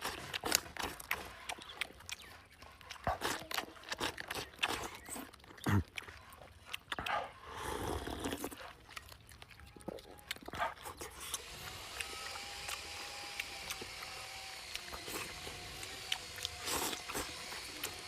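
A person eating chicken close to the microphone: chewing, lip-smacking and sharp clicks of bites, busiest in the first two-thirds. A faint steady background hum comes up about two-thirds of the way in.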